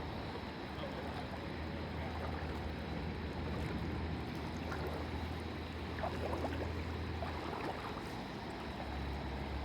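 Water sloshing and trickling, over a steady low hum that shifts in pitch near the end.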